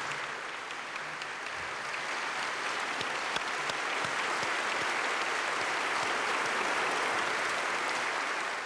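Large audience applauding in a standing ovation: steady dense clapping that builds a little after the first couple of seconds and drops away right at the end.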